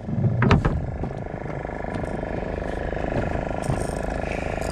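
Suzuki outboard motor idling steadily, with a brief burst of louder, irregular noise in the first second.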